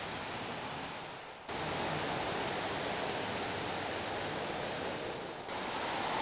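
A steady rushing, hissing noise spread evenly from low to high pitch. It sinks away twice, about a second and a half in and again near the end, and each time snaps back at once at full strength.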